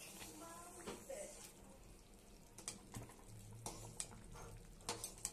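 Thick rajma and potato curry simmering in a steel pot: scattered soft pops and plops of bubbles bursting in the gravy, over a faint steady low hum.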